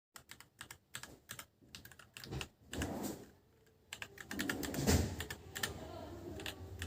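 Typing on a Royal Kludge RK84 mechanical keyboard: a quick, uneven run of keystroke clicks, with heavier, deeper strokes bunched about three seconds in and again around five seconds in.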